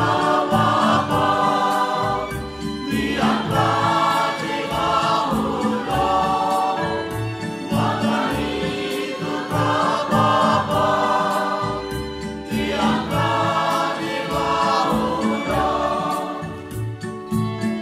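Church choir singing a Konkani hymn over instrumental accompaniment with a steady beat. The voices fall away near the end, leaving the accompaniment.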